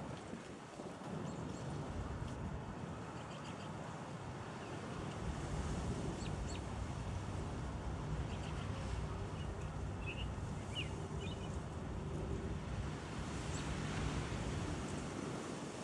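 A steady rushing noise with a few faint, short bird chirps now and then.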